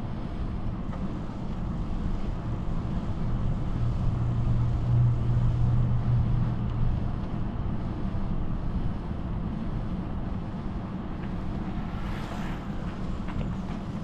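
Wind rushing over the microphone and a steady low hum from a bicycle riding along an asphalt path, a little louder for a few seconds in the middle.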